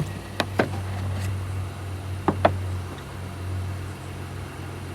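Four sharp clicks or taps from handling small objects, two close together near the start and two more about two seconds in, over a steady low hum.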